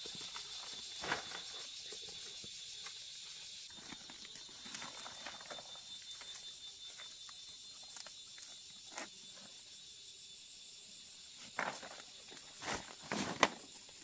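Dry leaves and twigs rustling and crackling as someone moves through undergrowth gathering dong leaves, with several louder snaps and crunches near the end, over a steady high-pitched drone.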